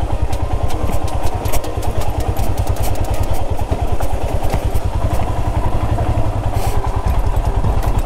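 Motorcycle engine running steadily at low revs as the bike is ridden slowly over a rough, stony off-road track, with frequent knocks and clatter from the bike jolting over the rocks.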